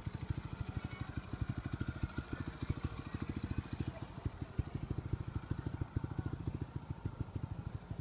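Trials motorcycle's single-cylinder engine running at low revs, a steady fast chugging of about ten firing pulses a second.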